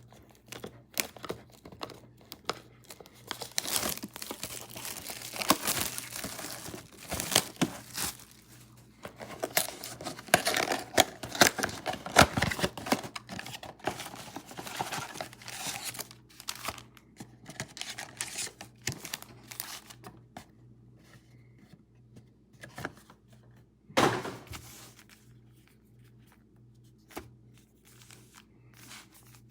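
Plastic wrapping crinkling and tearing as a trading-card box and its packs are opened, in irregular crackly bursts that thin out about halfway through. One sharp knock sounds late on.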